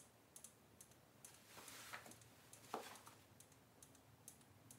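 Faint clicks of the small push button on a Perch Popper automatic nest-box door opener, pressed again and again, about two a second, each press advancing its timer by an hour. One louder knock, from the unit being handled, comes nearly three seconds in.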